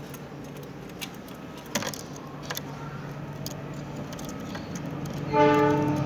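Steady low hum of passing traffic with a few sharp clicks, then a brief, loud horn-like blare near the end.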